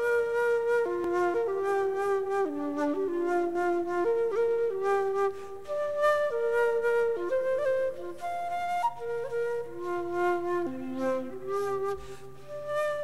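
Background music: a slow, smooth melody of held notes with a second line in harmony below it, and a low bass part joining after about nine seconds.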